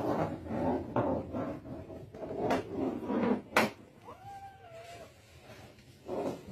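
A cat meows once, a single call of about a second about four seconds in. Soft rustling and two sharp clicks come before it.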